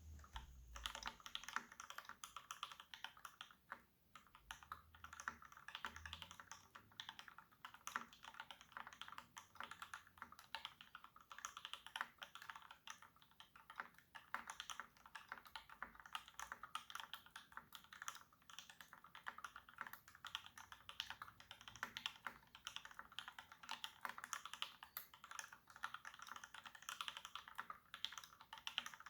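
Fast, continuous typing on a Satisfaction 75 mechanical keyboard with a brass plate, Gateron Ink Black linear switches lubed with 3204 and fitted with polycarbonate films, and GMK Nautilus keycaps: a dense run of keystrokes with a brief pause about four seconds in.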